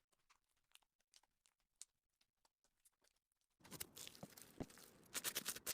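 Slime being handled: faint scattered sticky clicks, then from about three and a half seconds in a louder crackling texture, with a fast run of clicks near the end.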